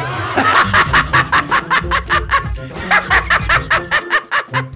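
Hearty laughter in quick repeated 'ha' pulses, about five or six a second, in two bouts with a short break between, following a joke's punchline.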